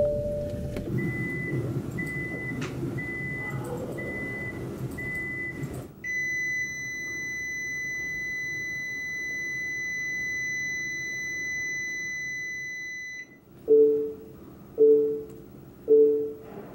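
Nissan car warning chimes. First a short high beep repeats about once a second over the hum of the car's cabin; then Nissan's previous warning sound, a single high steady tone held for about seven seconds. Near the end comes the newly developed sound, a lower two-note beep repeating about once a second.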